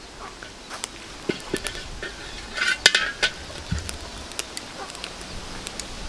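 A large steel wok set down on a brick fire stove, with a metal spatula clinking and scraping against the empty wok. Irregular clinks and knocks, loudest a little under three seconds in.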